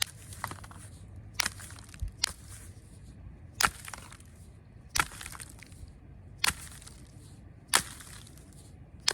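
Knapping a stone arrowhead: a sharp click or snap about every second or so as the tool bites the edge and small flakes break off. The stone is weather-damaged and working it is hard going.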